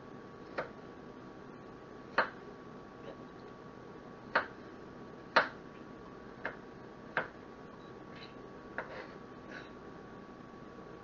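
Kitchen knife chopping an onion on a cutting board: sharp knocks of the blade on the board at irregular intervals, about eight of them, a second or so apart.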